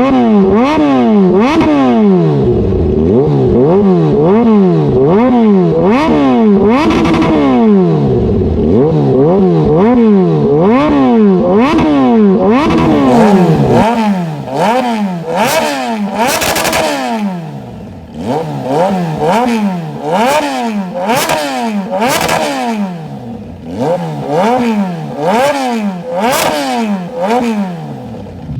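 Kawasaki Z H2's supercharged inline-four revved again and again through a slip-on exhaust, the pitch rising and falling about once a second. From about halfway through the blips come sharper, with loud pops and crackles from the exhaust as the revs fall.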